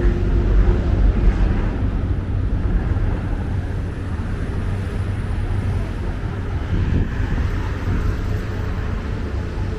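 Busy city street traffic: a steady low rumble of passing vehicles, a little louder in the first two seconds and then settling.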